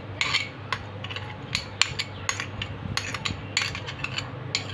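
Metal spoon scraping and tapping against a small bowl as ginger-garlic paste is scooped out onto raw meat: a run of irregular light clicks and clinks.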